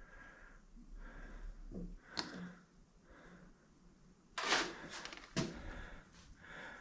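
Faint handling sounds: a light click, then a short rustle followed by another click near the end.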